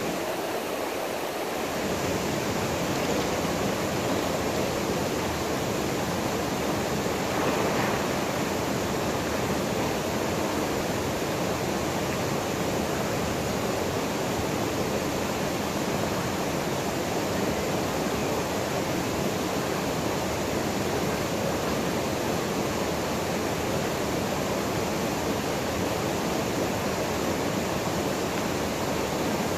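Steady, unbroken rush of a small waterfall pouring into its plunge pool.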